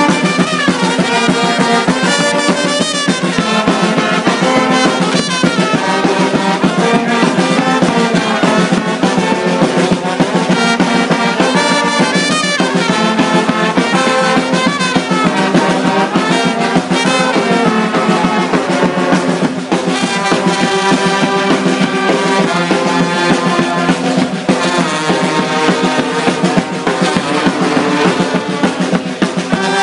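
Txaranga street brass band playing: trumpets, saxophones and trombone in full ensemble over percussion, loud and without a break.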